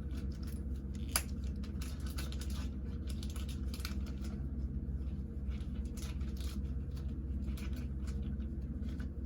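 Light rustling and small clicks of trading cards and their wrappers being handled, with one sharper click about a second in, over a steady low hum.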